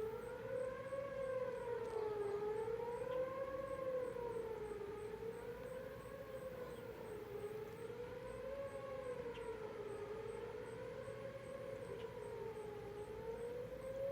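Whelen WPS 4004 electronic tornado sirens sounding the attack tone: a wavering tone that rises and falls about every two and a half seconds. The sirens are very quiet.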